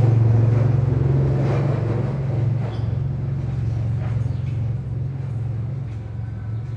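A vehicle engine running with a steady low drone that slowly fades.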